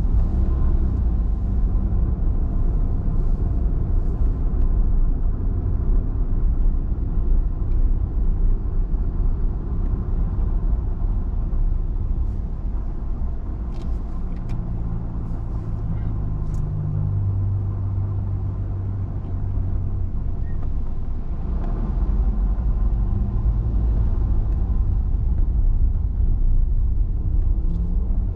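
Car driving, heard from inside the cabin: a steady low engine and road rumble. It eases midway to a quieter, steady engine hum, and the engine note rises again near the end.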